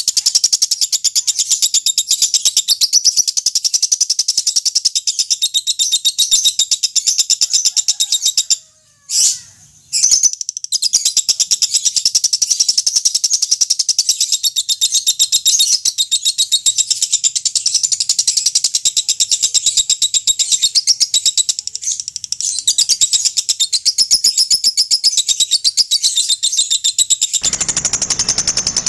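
Lovebird chattering in a long, rapid, high-pitched trill (the 'ngekek' call), with a break of about a second and a half around nine seconds in. A hiss of background noise joins near the end.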